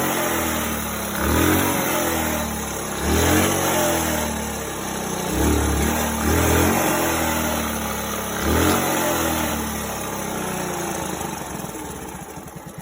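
Honda SS50's 49 cc single-cylinder four-stroke engine running just after its first start on a rebuilt carburettor, the throttle blipped repeatedly so the revs rise and fall about every second and a half. About ten seconds in it settles to a lower, unsteady idle.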